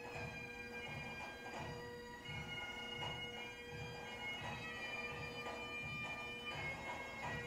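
Bagpipe music: a steady drone with a changing melody above it and a regular low beat underneath.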